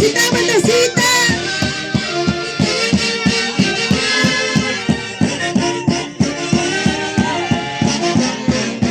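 Folk orchestra playing an upbeat tune, with held melody lines over a steady beat of about three strokes a second.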